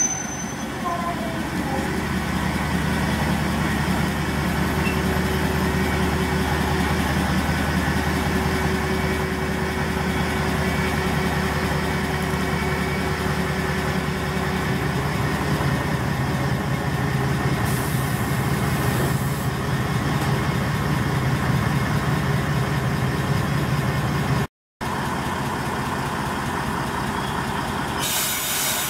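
Kishu Railway KR205 diesel railcar's engine idling steadily as the railcar stands at the platform, broken once by a short gap near the end.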